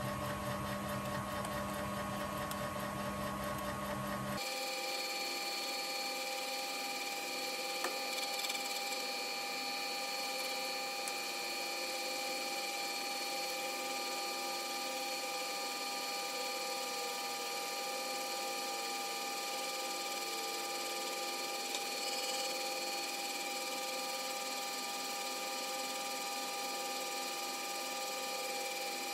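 Metal lathe running steadily with a whine of several steady tones while a carbide tool faces an aluminium plate. The sound changes abruptly about four seconds in, losing its low hum.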